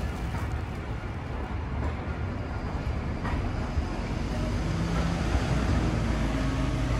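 Hiroshima Electric Railway 700-series streetcar running slowly along the station tracks: a steady low rumble, with a faint low hum coming in about five seconds in.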